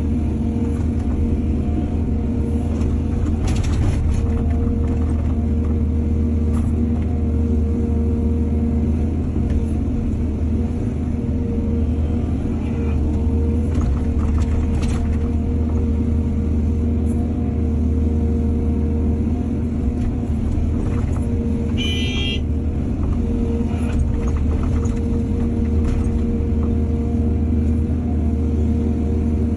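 Excavator's diesel engine running steadily under load, with scattered knocks and scrapes and a brief high squeal about two-thirds of the way through.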